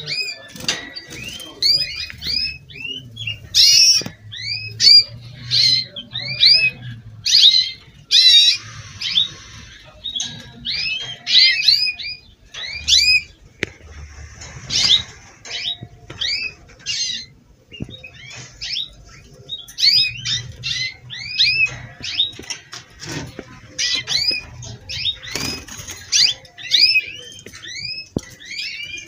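Domestic canaries singing: quick runs of short rising chirps and trills, repeated in bursts with brief pauses between phrases.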